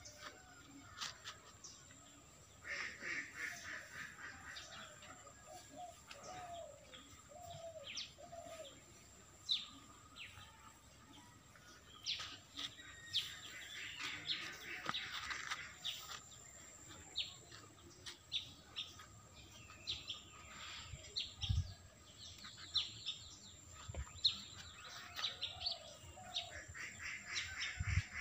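Small birds chirping and twittering throughout, with short high calls coming in quick clusters. There are a few dull low thumps in the second half.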